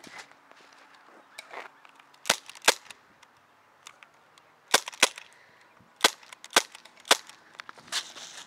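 Airsoft guns firing single shots: about eight sharp, light pops, mostly in pairs about half a second apart.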